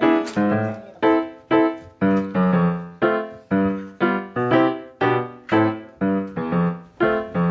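Background piano music: a steady run of single notes or chords struck about twice a second, each ringing and fading before the next.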